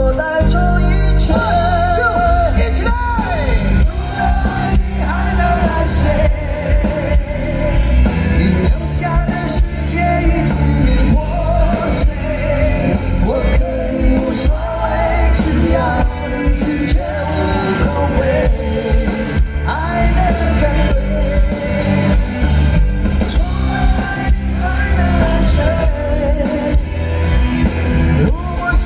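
Live rock band playing loud and steady, with a voice singing a wavering melody over guitars, bass and drums.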